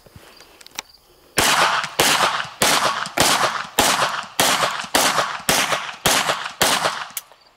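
Glock 17 Gen 3 9mm pistol fired in a steady string of about ten shots, roughly one every 0.6 seconds, starting about a second and a half in, each shot with a short ringing tail. The pistol is caked in mud and cycles through the string without a stoppage.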